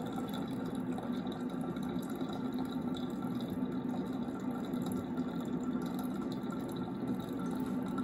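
Bunn VPR commercial pour-over coffee maker finishing its brew, with coffee trickling steadily from the brew funnel into the glass decanter.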